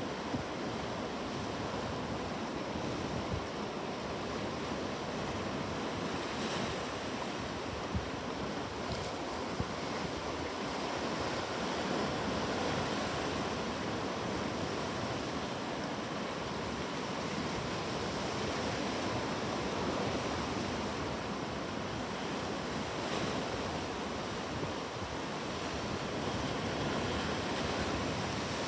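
Ocean surf washing continuously, swelling and easing slowly, with a few brief clicks.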